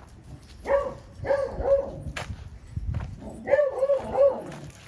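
A beagle barking in short, pitched barks: one about a second in, a few quick ones around a second and a half, and a run of three near four seconds. A sharp click sounds just after two seconds.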